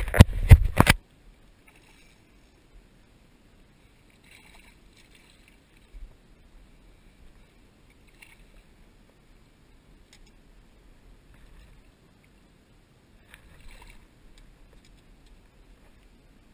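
A loud rumbling knock in the first second from handling or bumping on the boat and the body-worn camera, then quiet with a few faint splashes and small clicks as a hooked fish is fought at the surface beside the boat and lifted out by the lip.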